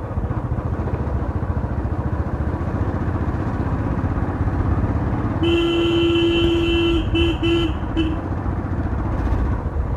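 Motorcycle engine running on the move, with a steady rumble of engine and wind. About five and a half seconds in, a horn sounds: one long honk of about a second and a half, then three short toots.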